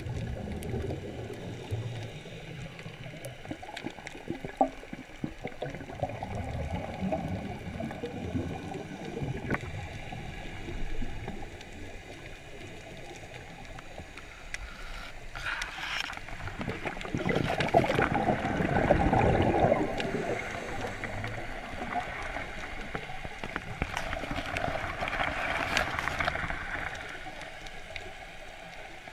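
Muffled underwater water noise picked up by a GoPro inside its waterproof housing. It grows louder twice, about sixteen seconds in and again about twenty-four seconds in.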